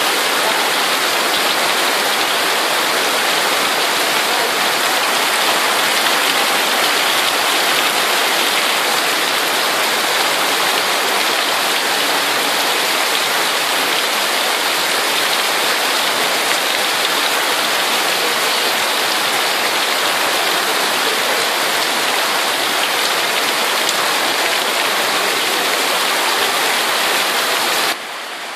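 Heavy rain falling on a corrugated metal roof and pouring off its edge in a sheet of runoff: a loud, steady hiss. Near the end it cuts to quieter, duller rain falling on garden foliage.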